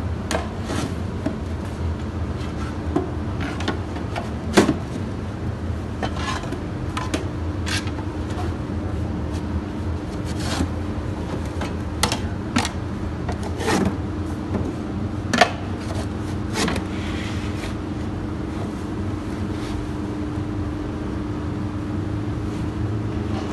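Steel lids being slid and set onto steel loaf tins: irregular scrapes and sharp metal clacks, a few louder knocks among them, over a steady low hum.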